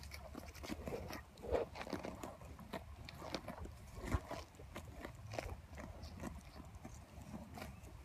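Cattle grazing, tearing off and chewing grass in a run of irregular crunching snips.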